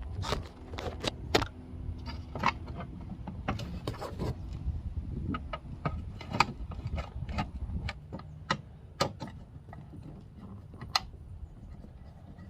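Screwdrivers working a stuck screw out of a Foxbody Mustang armrest: irregular clicks, taps and scrapes of metal tools against the armrest's parts, coming more sparsely in the second half.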